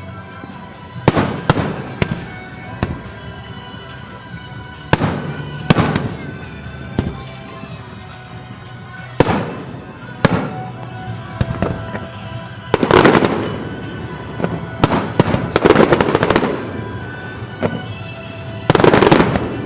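Aerial fireworks shells bursting one after another in sharp bangs with echoing tails, with longer dense crackling clusters about 13, 16 and 19 seconds in. Music plays steadily underneath.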